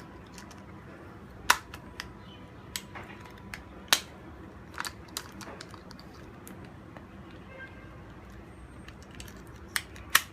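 Scattered sharp clicks and taps, about eight at irregular spacing, from hands handling an action camera, its waterproof housing and the box's contents, over a faint steady hiss.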